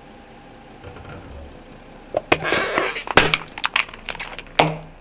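Car tyre crushing a plastic toilet-brush holder: a dense crackle a little over two seconds in, then a string of sharp snaps as the plastic cup cracks and splits, with a last loud crack near the end.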